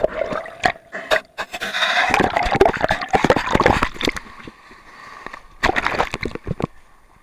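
Seawater splashing and sloshing over an action camera's housing in the surf, with many sharp knocks and scrapes against the housing. The splashing is densest about two to four seconds in, and another cluster of knocks comes near six seconds.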